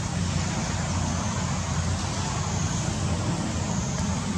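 Steady outdoor background noise: a low rumble with an even hiss above it and a faint high band near the top, with no calls or distinct events.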